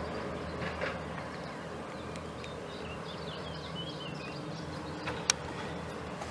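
Distant Scania coach engine running as it comes down the street, a steady low drone. Small birds chirp briefly in the middle, and there is a single sharp click about five seconds in.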